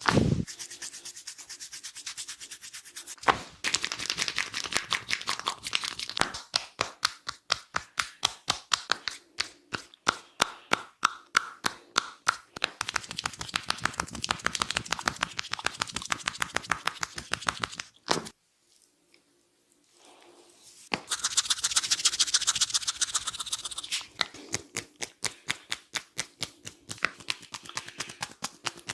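Barber's hands working a head massage: fast, even tapping, rubbing and crackling on the scalp and hair, several strokes a second. It stops for about three seconds past the middle, then resumes with a brighter rubbing.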